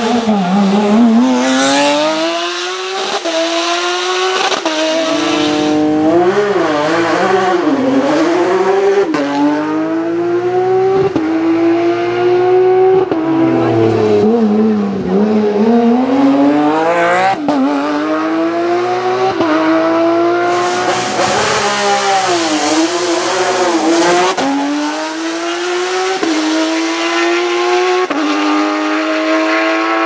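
Porsche 911 race car's flat-six engine revving hard through the gears out of a hairpin and on up the hill, its note climbing and then dropping at each shift many times over.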